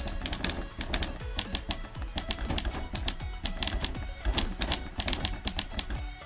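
Background music with a fast beat: dense, crisp clicking percussion over low kick drums that drop in pitch.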